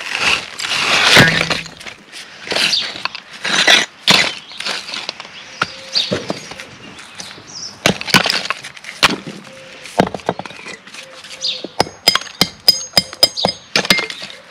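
Clay bricks clattering and knocking against one another as an old brick garden wall is pulled down, in irregular clusters of hard knocks. Near the end comes a quick run of sharp, ringing clinks.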